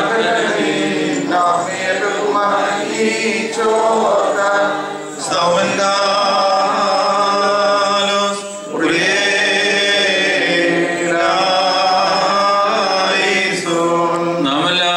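Men's voices chanting a slow Malankara Orthodox liturgical hymn in long held notes, with short breaks about five and eight and a half seconds in.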